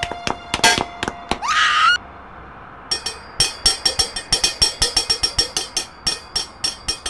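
Rapid, irregular clicking and clattering. About one and a half seconds in, a short shrill cry rises in pitch and cuts off abruptly. After about a second of quiet the clicking comes back, denser.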